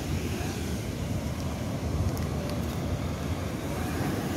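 Wind buffeting the microphone, a steady low rumble, over the wash of sea surf.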